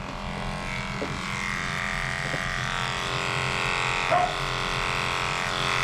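Cordless dog-grooming clipper with a 30 blade running steadily, a continuous motor buzz as it trims the hair between a dog's paw pads.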